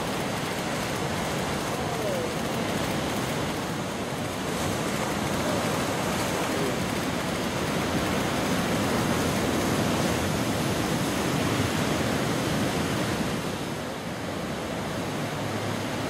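Steady roar of giant ocean waves breaking, a dense rushing wash of surf noise.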